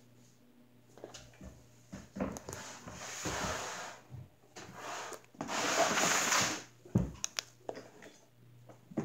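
Fingers slowly pressing into a mound of thick white slime on a wooden table, making squishy sounds in two longer stretches, with a few sharp clicks near the end.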